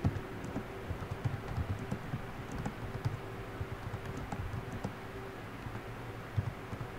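Typing on a computer keyboard: an uneven run of keystroke clicks, about three keys a second, over a faint steady hum.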